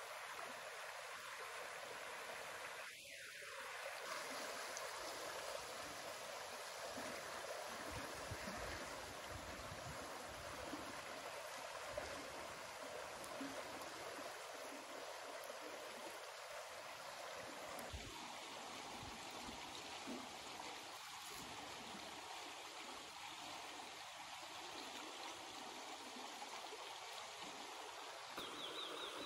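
Shallow river rushing steadily over rocks.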